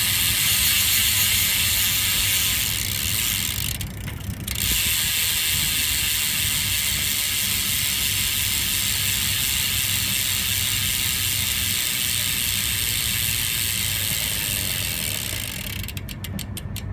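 Profile Mini SS BMX rear hub freewheeling, its pawls ratcheting in a fast, steady high buzz while the wheel spins. The buzz breaks off briefly about four seconds in, then resumes. Near the end it slows into separate clicks as the wheel runs down.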